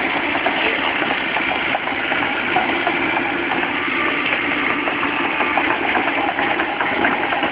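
Sumitomo hydraulic excavator's diesel engine running steadily.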